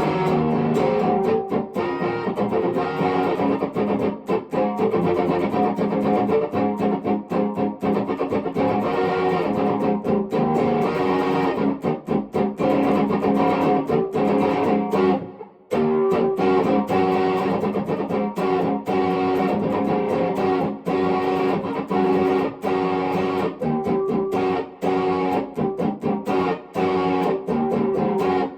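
Epiphone 1959 Les Paul Standard electric guitar played through an amplifier with a light effect, a continuous run of picked notes and phrases, breaking off briefly about halfway before carrying on.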